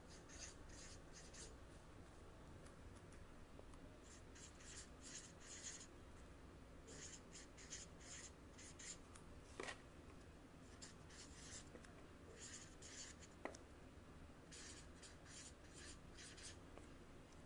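Marker pen scratching across paper, faint, in short bursts of strokes as letters are written, with a couple of sharper ticks from the tip touching down.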